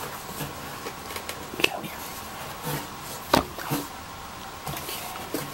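Cardboard box and styrofoam packing handled as an inner box is worked loose from its foam end pieces: light rustling and scraping with a few sharp knocks, the loudest about three seconds in.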